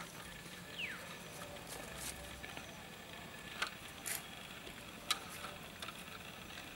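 Light sharp clicks and taps from hands working at a drink can fixed on a stick, three of them standing out in the second half, over a faint outdoor background. About a second in there is one short falling whistle.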